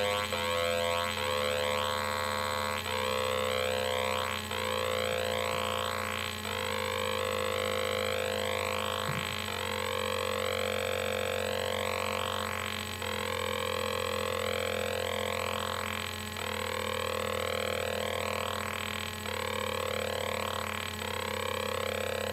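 Homemade Atari Punk Console, a 555-timer square-wave noise maker, playing through a tiny greeting-card speaker: a harsh buzzing tone in repeating stretches of about three seconds, with pitches sliding within each stretch and short drop-outs between them.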